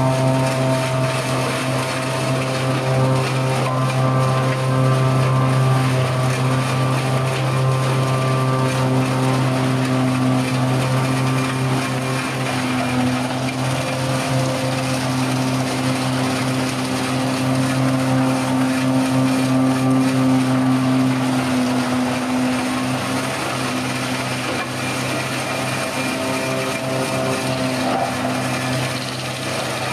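Tractor's diesel engine running steadily under load, powering a front-mounted harvesting head that cuts and chips young pine trees and blows the chips into a container; a continuous deep machine drone.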